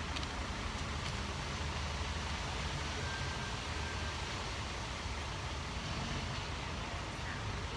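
Steady low rumble and hiss of outdoor background noise, with no single event standing out.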